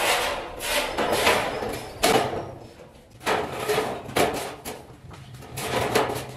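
Metal ceiling-frame sections clanking and scraping against each other and the scaffold frames as they are handled and set in place: a run of clanks and scrapes about a second apart, the sharpest about two seconds in.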